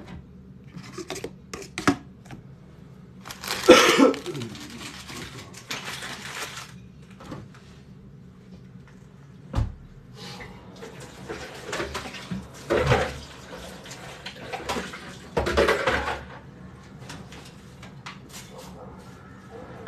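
Kitchen handling sounds: dishes and utensils clattering and knocking, with three longer noisy bursts of a second or more.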